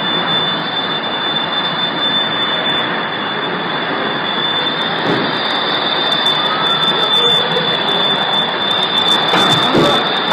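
Loud, steady rushing roar of storm wind with a thin, constant high whine over it.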